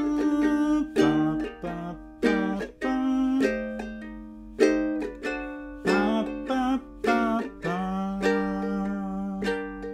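Ukulele strumming a swung jazz-style chord accompaniment, the accented strums on beats 2 and 4 standing out at a steady pace with lighter strokes between them.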